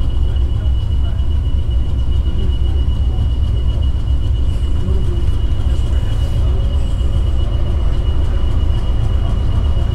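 Class 20 diesel-electric locomotive drawing slowly closer along the track, its engine a steady low rumble, with a thin steady high whine over it.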